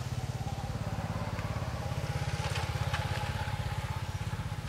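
A small engine running steadily, a low, rapid, even chugging with a faint steady whine above it. A few faint clicks come in about halfway through.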